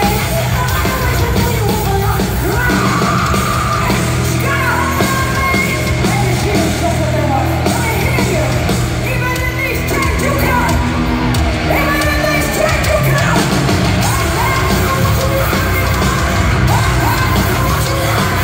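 Live heavy metal band playing at full volume, with distorted electric guitars, bass and drums under female lead vocals that are sung and yelled, heard from the audience through the hall's PA.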